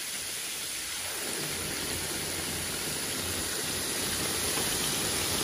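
Plantain dumplings (unnakkai) deep-frying in hot oil: a steady sizzle of bubbling oil that grows slightly louder toward the end.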